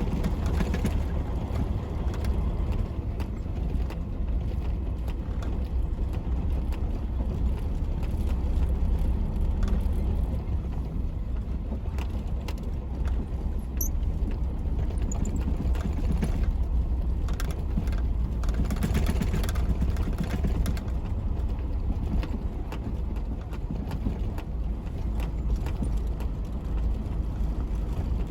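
Tractor-trailer truck running, a steady low engine and drive rumble with scattered light clicks.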